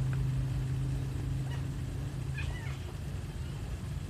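Hungry domestic cat meowing a few times, short and faint, the clearest call about two and a half seconds in. A low engine hum fades out under it during the first two seconds.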